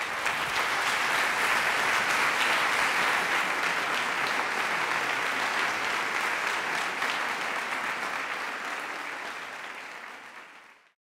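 Audience applauding steadily after a lecture, fading out over the last couple of seconds.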